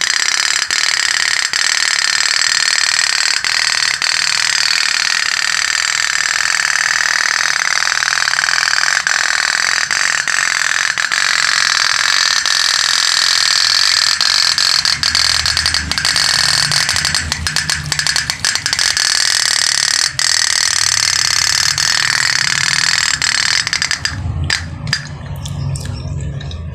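Pop-pop boat (otok-otok toy steam boat) running, its flame-heated boiler giving a loud, fast, continuous rattling buzz. It stops near the end, leaving scattered small clicks.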